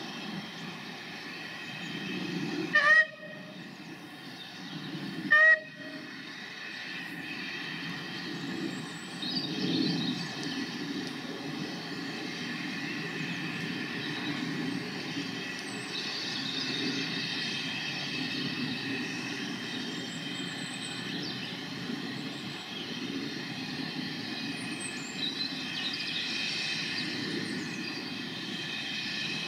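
Two short toots on the whistle of the Bagnall No. 2 steam locomotive, about three and five and a half seconds in, then the steady running of the train approaching along the line.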